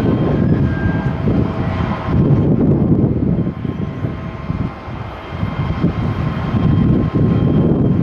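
Jet engines of a Japan Airlines Boeing 737 climbing away after takeoff: a continuous low rumble with a few faint steady whining tones above it. Gusty wind buffets the microphone, making the rumble flicker and dip.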